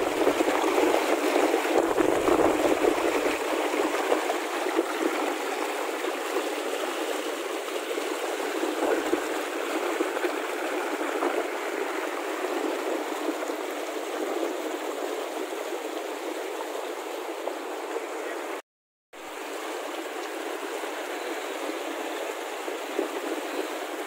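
Steady rushing of a fast mountain river, an even, continuous wash of water noise that breaks off for a split second about three-quarters of the way through.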